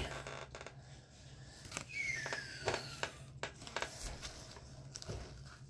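Gloved hands slipping a trading card into a clear rigid plastic holder: faint plastic-and-card handling with several light clicks and a short falling scrape about two seconds in.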